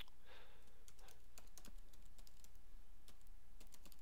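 Typing on a computer keyboard: a quick, irregular run of key clicks as a line of code is entered.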